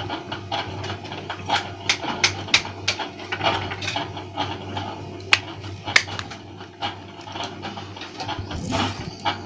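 Irregular small clicks and taps of plastic phone parts being handled and pressed together during reassembly, the sharpest two about five and six seconds in, over a steady low hum.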